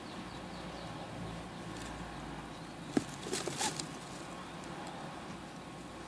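Young lovebird chicks giving faint high peeps over a steady low hum. About three seconds in there is a sharp click, then a brief raspy burst.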